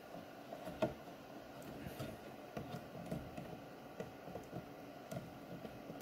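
Faint clicks and scraping of a DDR4 RAM module being pressed down into a motherboard memory slot, with one sharper click about a second in; the module is not yet fully seated.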